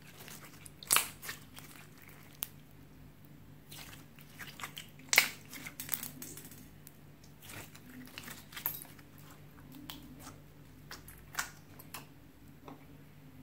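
Hands squishing and kneading slime: irregular sticky pops and crackles, the loudest about five seconds in.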